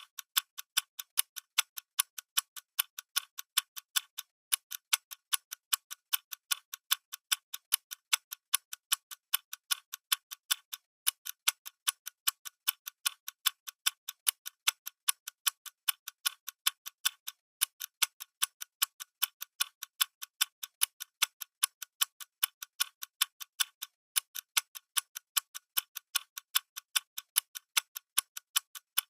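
Clock ticking steadily, evenly spaced sharp ticks alternating louder and softer, with a short break every six or seven seconds.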